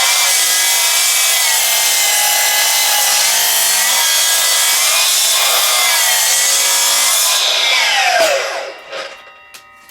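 Milwaukee M18 Fuel 12-inch cordless sliding compound mitre saw cutting through an old log, with a loud steady whine. About eight seconds in, the motor winds down quickly to a stop under its electric brake.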